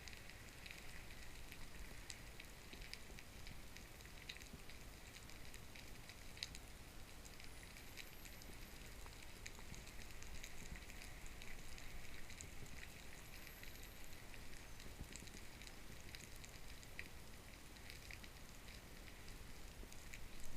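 Underwater crackling and fizzing with many scattered sharp clicks, heard through a camera's waterproof housing, over a low rumble.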